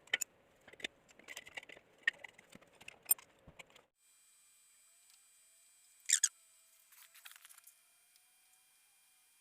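Scattered light metallic clicks and taps from a motorcycle crankshaft being handled and turned on a truing jig, with one sharper click about six seconds in and a few faint ticks after it.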